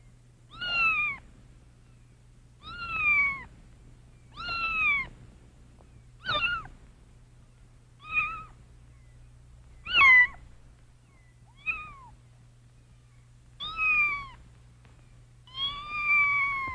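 Domestic cat meowing repeatedly, about nine meows one and a half to two seconds apart, each rising and then falling in pitch. A faint steady low hum runs underneath.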